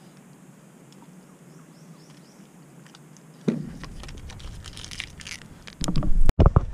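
Quiet for about three seconds, then a knock followed by light clicks and rustles of things being handled, and heavy thumps near the end as footsteps start.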